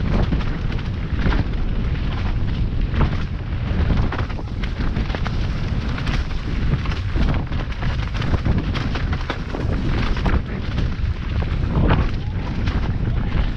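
Wind buffeting the camera's microphone with a loud, steady rumble during a fast mountain-bike descent. Tyres run over dirt and leaves, and the bike rattles through frequent bumps.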